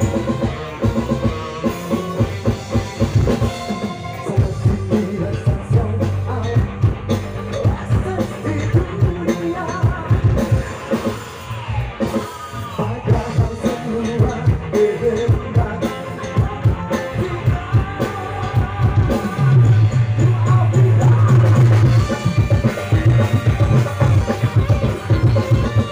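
Live band music with a male singer: drums, electric and bass guitars and keyboard playing through the stage PA, with a heavier, louder bass passage about three quarters of the way through.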